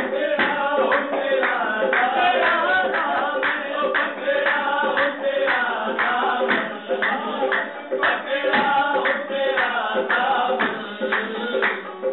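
Live qawwali: male voices singing together over a steady held accompaniment, kept in time by rhythmic hand clapping and tabla strokes.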